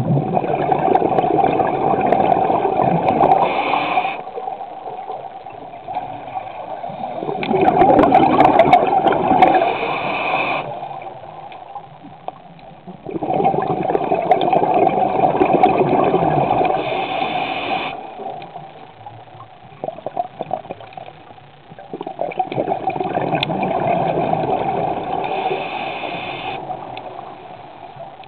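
A scuba diver's breathing picked up underwater: long rushes of air through the regulator and bubbling exhalations, in a slow cycle repeating four times, roughly every six to seven seconds.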